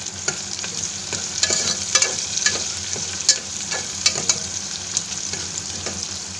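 Chopped onions, curry leaves and green chillies sizzling in hot oil with mustard and cumin seeds in a pressure cooker. A metal spoon stirs them, scraping and clicking against the pot at irregular moments.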